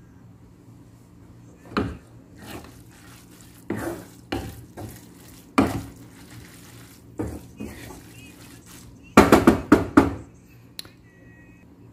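Wooden spatula scraping and knocking against a pan as cooked spaghetti is tossed and stirred, in scattered separate strokes, with a quick run of louder knocks near the end.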